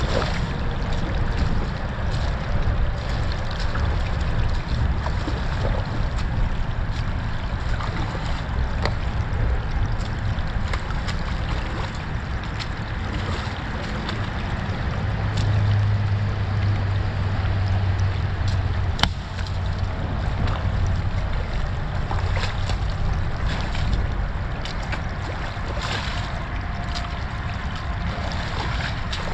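Shallow creek water rushing over sticks and debris through a freshly breached mini dam, with low wind rumble on the microphone. Scattered small splashes and clicks from rubber boots wading in the water, one sharper click about two-thirds through.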